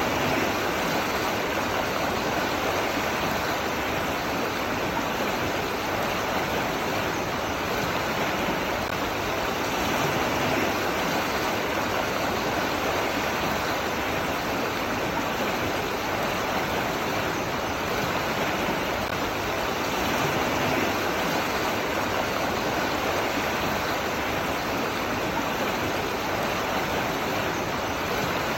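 Running water rushing steadily, an even unbroken hiss with no distinct splashes or drips.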